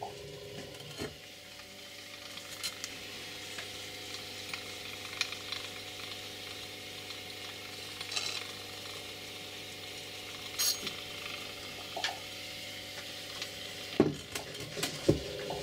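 Small electric motor and gear drive of a restored vintage turntable running smoothly, cleaned and re-greased, with a steady low hum. It starts with a click about a second in and stops with a knock near the end, with light clicks and rattles from the mechanism being handled.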